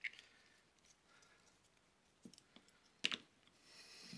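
Faint handling of small tools and a Loctite bottle on a rubber bench mat: a few light clicks and taps, with one sharper click about three seconds in.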